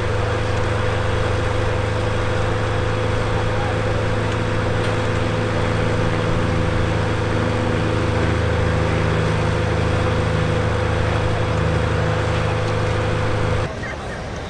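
Aircraft engine running at a steady, unchanging pitch, which stops suddenly near the end.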